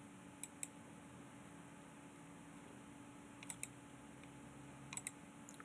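Computer mouse button clicking: three quick double clicks, about half a second, three and a half and five seconds in, over a faint steady hum.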